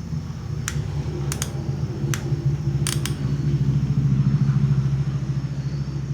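About six sharp clicks in the first three seconds, from the trigger of a soldering gun's solder-feed mechanism, over a steady low hum.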